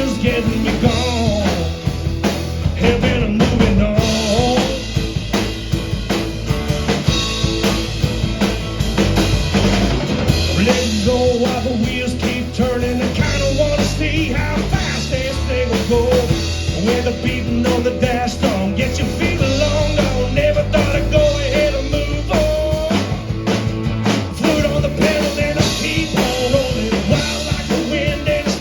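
Rock music from a band: a drum kit keeps a steady beat under a lead melody line that wavers in pitch.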